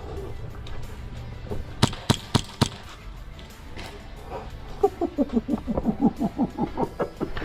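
Four quick sharp shots from a Hi-Capa gas airsoft pistol, about four a second, about two seconds in. Later comes a fast run of about a dozen short calls, each falling in pitch.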